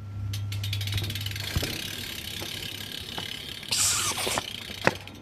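BMX rear hub ratcheting as the wheel spins freely: a fast run of clicks that slows as the wheel coasts down, followed by a short burst of noise about four seconds in.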